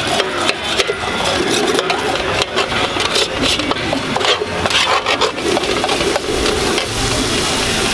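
Flat metal spatula scraping and stirring paneer bhurji around a hot metal pan, with quick, repeated scrapes and clatters. After about six seconds the strokes thin out, leaving a steadier sizzle.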